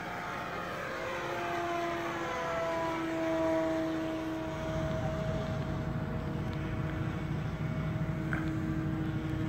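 Motor and propeller of a radio-controlled model Cessna 150 in flight, a steady tone that drops in pitch over the first few seconds and then holds, with a low rumble joining about halfway through.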